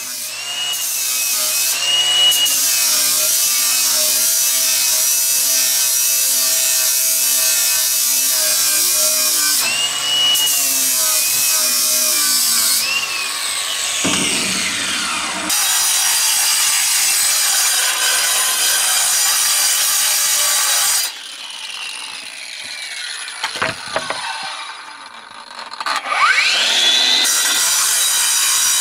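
AEG 18V brushless cordless angle grinders grinding steel and cutting concrete, the motor whine dipping and rising under load. The grinders spin down about halfway through and again about two-thirds in, then spin up and bite in again near the end.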